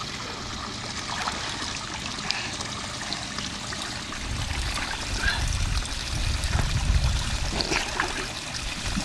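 Swimming-pool water splashing and trickling around a toddler swimming, with small splashes throughout. A low rumble comes in about four seconds in and fades near the end.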